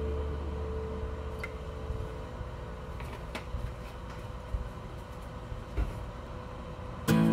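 Quiet low background rumble with a few faint, short knocks, the last and loudest a low thud about six seconds in. Background music fades out at the start, and guitar music comes back in just before the end.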